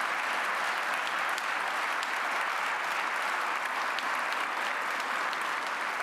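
Audience applauding steadily in a large hall, a dense patter of many hands clapping at once.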